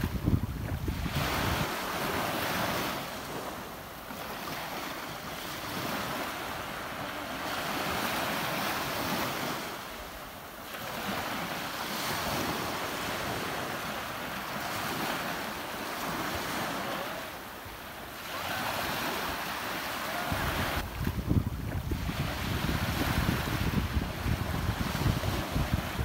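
Ocean surf washing in and out, swelling and easing every few seconds. Wind buffets the microphone in gusts near the start and again through the last few seconds.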